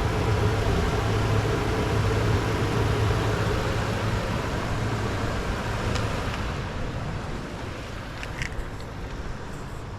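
Motor vehicle engine running with a steady hum that fades away over the last few seconds.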